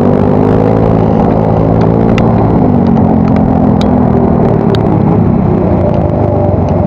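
Yamaha Mio Soul GT scooter's single-cylinder four-stroke engine running through an aftermarket exhaust while riding, its pitch easing up and down gently with the throttle.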